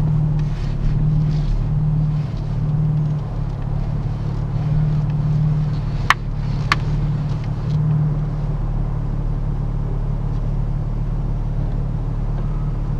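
Nissan 350Z's V6 engine running under way with a steady low drone that swells and eases every second or so. Two sharp clicks about six seconds in.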